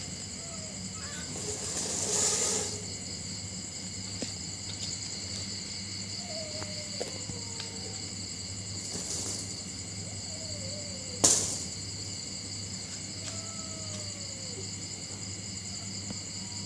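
Steady night-time chorus of crickets chirring, over a low hum. A few faint short falling whines come and go, with a rustle about two seconds in and a single sharp knock about eleven seconds in.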